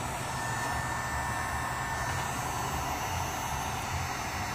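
Handheld Drill Master heat gun running steadily, its fan blowing hot air onto vinyl lettering: an even rush of air over a low motor hum.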